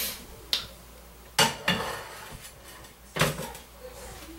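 A frying pan being handled and set down on a smooth-top electric stove: a few clanks and knocks of cookware, the loudest about a second and a half in.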